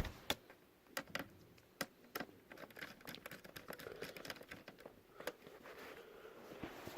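Scattered small plastic clicks and taps of a laptop's case as a part is fitted back onto it, a few sharper snaps in the first couple of seconds, then lighter handling noise.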